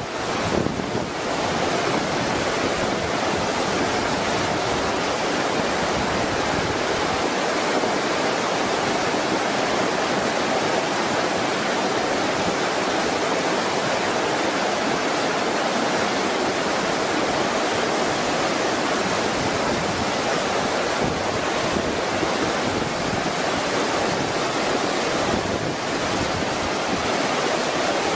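Fast-flowing floodwater rushing, a steady, unbroken noise of churning water.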